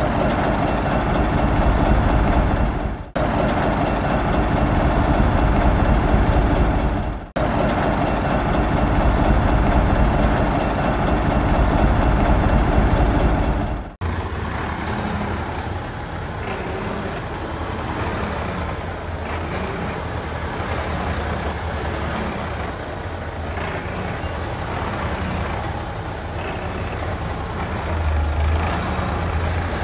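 Heavy diesel construction machinery, dump trucks and a bulldozer, running under load in a string of cut-together clips. The sound breaks off sharply three times, and after the last cut the engine note is steadier and a little quieter.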